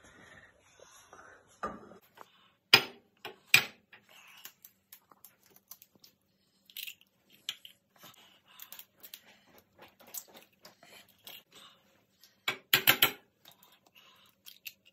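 Eggs knocked against the rim of a plate to crack them open: two sharp knocks about three seconds in and a quick flurry of knocks near the end, with faint shell and handling clicks between.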